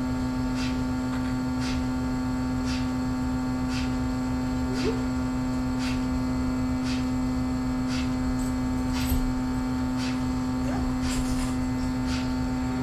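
Steady machine hum with a sharp, even tick repeating a little under twice a second.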